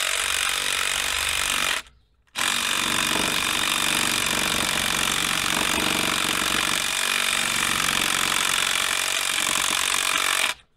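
Cordless impact gun hammering exhaust manifold nuts down onto their studs: a burst of about two seconds, a brief pause, then one long unbroken run that cuts off near the end.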